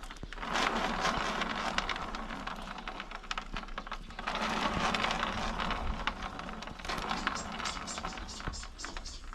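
Worn bottom bracket bearings on a Trek Émonda road bike grinding and crackling as the cranks turn, rough and gritty, louder in two spells. The bearings are shot and sound like a bag of spanners.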